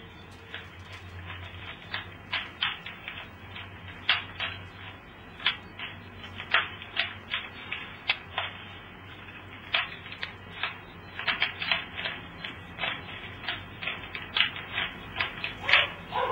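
A Rubik's cube being turned by hand, its plastic layers snapping round in irregular clicks, with a quick run of several about eleven seconds in.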